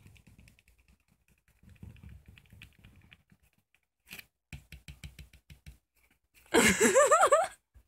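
Young orange tabby cat crying near the end in a quick run of meows that rise and fall in pitch, an angry cat that has been teased. Before it, faint rustling and a few light ticks.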